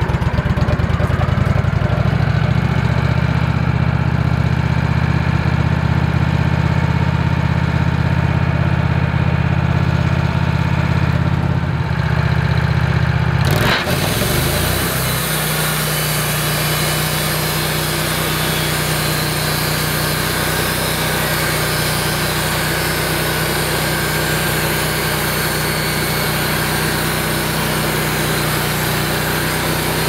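Wood-Mizer LX150 band sawmill's engine running under load while the blade saws a board off a hardwood log. Partway through there is a short sharp sound, after which the engine runs steadier and lighter as the head travels along the log.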